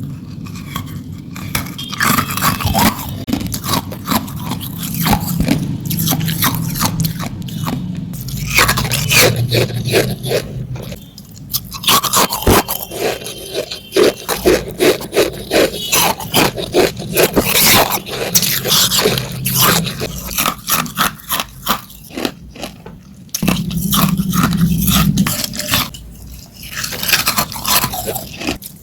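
Hard ice being bitten and crunched between the teeth, close to the microphone: long runs of rapid, sharp crunches broken by a few short pauses.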